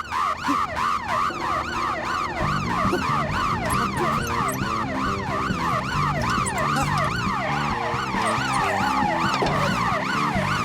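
Siren in a fast up-and-down wail, several sweeps a second. Music plays underneath from about two seconds in.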